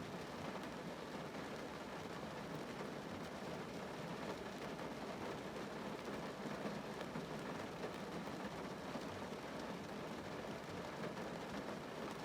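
Rain falling on a car, heard from inside the cabin: a steady patter of drops on the roof and glass.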